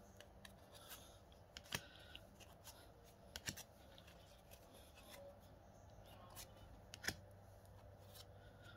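Pokémon trading cards being handled and flipped through one at a time, with a few faint, sharp clicks and snaps of card against card.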